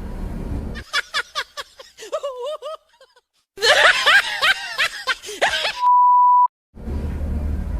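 Short stretches of high-pitched snickering laughter, the second louder, then a steady high beep tone lasting about half a second, with a low background rumble at the start and the end.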